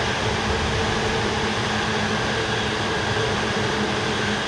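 A Keihin-Tohoku Line electric commuter train running past, heard as a steady noise with a faint steady hum through it.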